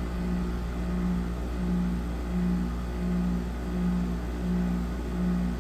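2008 Frigidaire 6,500 BTU window air conditioner running: a steady low hum under a higher hum that swells and fades about three times every two seconds. The unit is barely cooling, and the owner suspects it is low on refrigerant charge.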